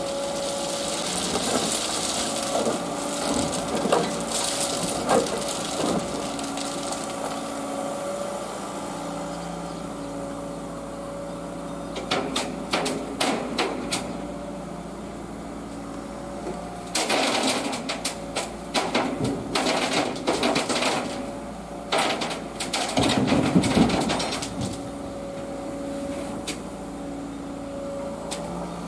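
Liebherr road-rail excavator's diesel engine running steadily with a held hum, broken a little under halfway through and twice more later by bursts of clattering, knocking work noise.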